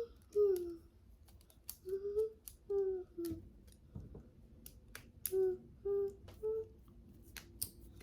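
A high voice humming short notes that rise and fall, with light clicks and taps in between as the plastic toy makeup case is handled.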